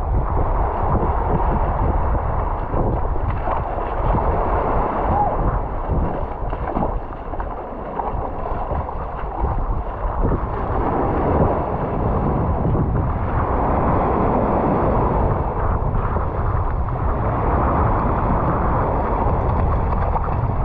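Sea waves washing and foaming over shoreline rocks, with wind buffeting the microphone in a steady low rumble.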